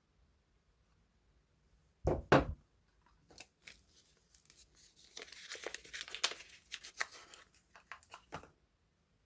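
Soap packaging being unwrapped by hand: two heavy thumps a little after two seconds, then scattered clicks and a few seconds of wrapper crinkling and tearing.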